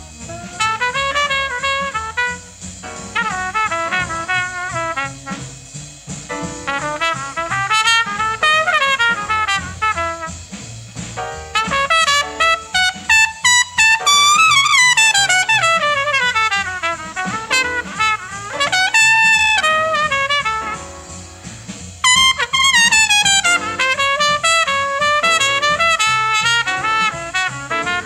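Fast bebop small-group jazz from a 1950 studio recording: a trumpet plays rapid runs that climb and fall, over a rhythm section.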